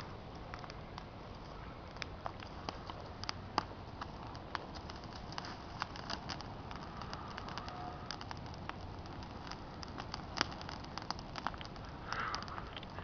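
Bonfire of twigs and brush crackling: irregular sharp pops with a few louder snaps, over a steady background hiss. A brief louder burst of noise comes near the end.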